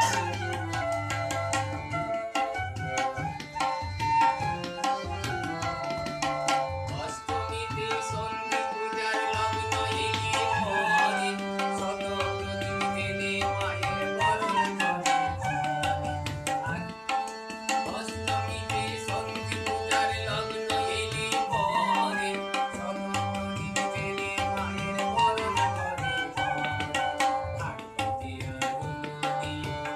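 Tabla playing a steady rhythm under harmonium chords and a bansuri bamboo flute melody, as a small live ensemble.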